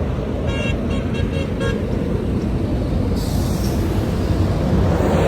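Steady outdoor road traffic rumble. A quick run of about five short, high beeps comes between half a second and a second and a half in.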